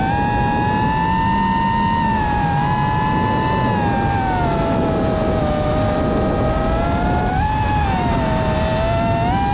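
FPV racing drone's electric motors and propellers whining in flight, the pitch sliding lower around the middle and rising again near the end as the throttle changes, over wind noise.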